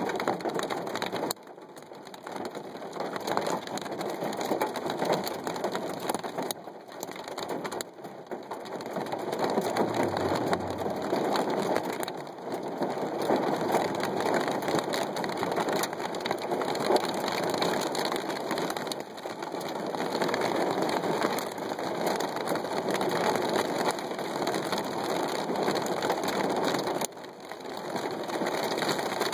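Heavy storm rain beating down on the glass and surroundings, a dense steady hiss. It drops off suddenly a few times, about a second and a half in and again near the end, then builds back up.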